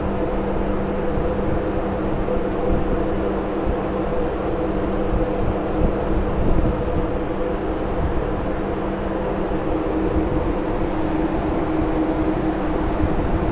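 Steady drone of a container ship's onboard machinery: a constant hum of several even tones over a low rumble, unchanging throughout.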